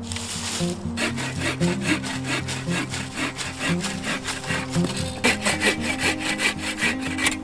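Hand saw cutting through wood in quick, even back-and-forth strokes, with background music under it.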